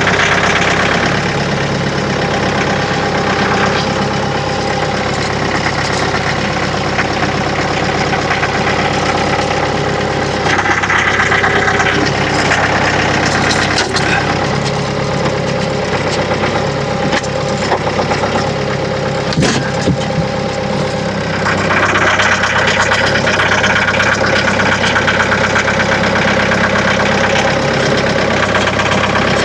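Vehicle engine running steadily, getting louder and brighter for a couple of seconds about a third of the way in, then again from about two-thirds of the way through to the end.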